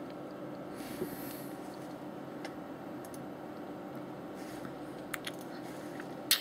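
Quiet room with a steady low hum, a person's sniff about a second in, and a few sharp clicks near the end, the last the loudest.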